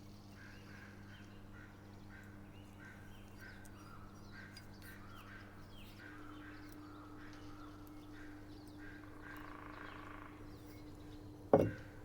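Faint bird calls, short chirps repeating about twice a second, over a low steady hum. A single sharp knock comes near the end.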